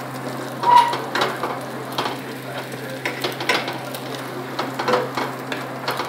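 Scrambled egg and mixed vegetables sizzling in hot oil in a skillet, with scattered scrapes and knocks of a wooden spoon against the pan. There is a short high squeak just under a second in.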